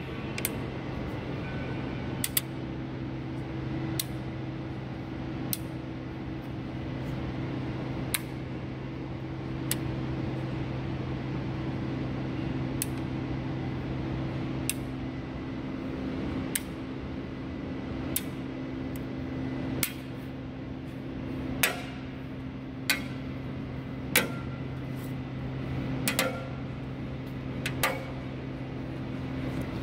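A small magnet clicking against a car's steel body panels and trim, a sharp click every second or two and more often in the second half, over a steady low hum.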